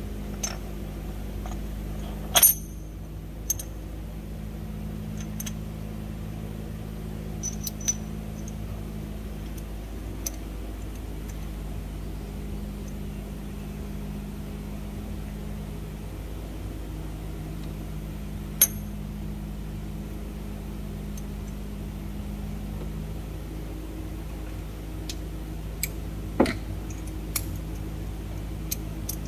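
Scattered sharp clicks and clinks of metal parts being handled on an open diesel cylinder head, the loudest about two and a half seconds in, over a steady low hum.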